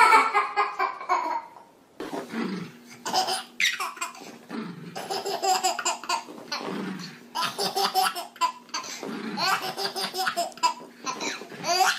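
Babies laughing hard in repeated bursts of belly laughter, with an adult laughing along in lower, falling swoops.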